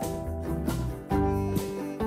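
Background music: plucked guitar with a bass line, notes changing every half second or so.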